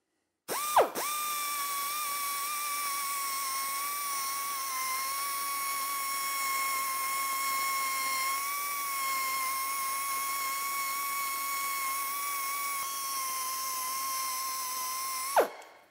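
Die grinder with a sanding bob starting about half a second in, spinning up fast to a steady high whine with a hiss, while it sands tool marks out of a revolver trigger guard. Near the end it is switched off, and the pitch falls away as it stops.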